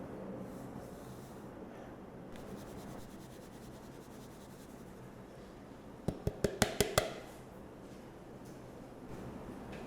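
A quick run of about seven light, sharp taps within about a second, over faint steady room noise.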